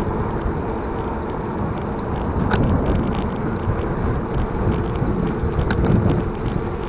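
Wind rumbling on the microphone of a bicycle being ridden along a road, with faint scattered light clicks and rattles from the bike.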